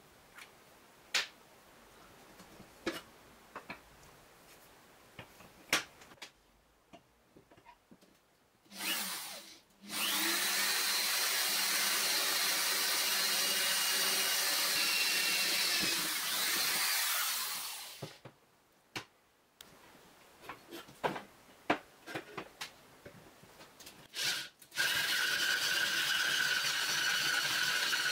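Cordless drill with a twist bit boring through a steel strap hinge: a short burst, then a steady run of about seven seconds that winds down, and a second steady run near the end. Before and between the runs, light clicks and knocks of the hinge and tools being handled.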